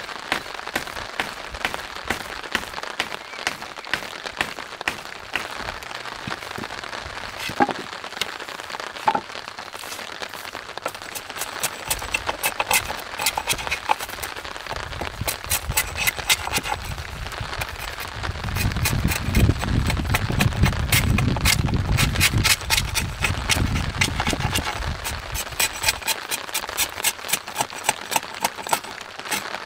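Knife carving a block of wood: a rapid run of short, crisp cuts and cracks as the blade bites into the grain. A low rumble comes in for several seconds in the middle.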